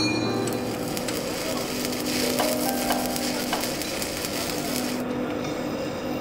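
Crackling, sizzling hiss of a torch working steel plate, over a steady low hum. The hiss thins out about five seconds in, leaving scattered sharp ticks.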